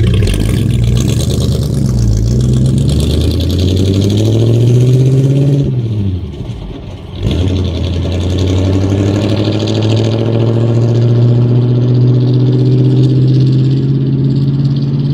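A vehicle engine pulling under acceleration, its pitch climbing, falling back with a brief drop in loudness at a gear change about six to seven seconds in, then climbing slowly again.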